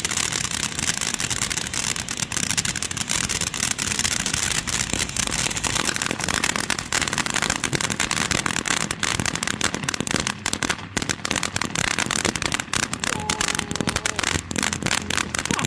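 Ground fountain firework from TNT's Safari Bus 4-pack spraying with a steady hiss and crackling. The crackles grow denser and sharper in the second half.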